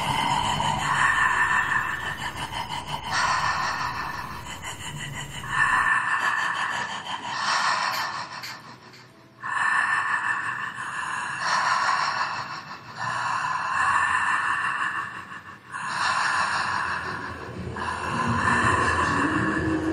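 A person breathing heavily, gasping in and out in rasping breaths about a second each, with a brief pause about nine seconds in.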